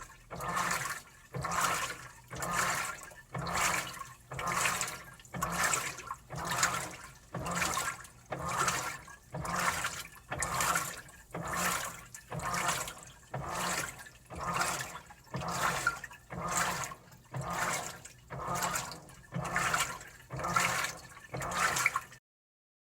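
Washing machine in its wash cycle: water and clothes sloshing in the turning drum, in an even rhythm of swells about once a second. The sound stops abruptly near the end.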